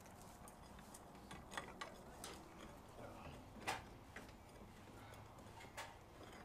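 Faint, irregular clicks and taps of hand tools on steel, as rust and scale are scraped off a steam locomotive's plating. The loudest tap comes about three and a half seconds in.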